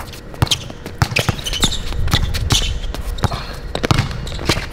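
A basketball dribbled hard on an outdoor court: a quick, irregular run of bounces, with a few short high squeaks that are likely sneakers on the court surface.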